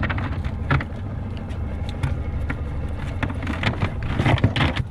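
Steady low rumble on a small boat, with a few light knocks and clicks as shrimp and the cast net are handled on the deck.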